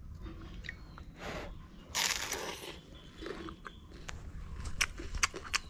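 A person eating close to the microphone, biting and chewing a piece of bread dunked in tea. There is a loud noisy bite about two seconds in, then a run of sharp clicks near the end.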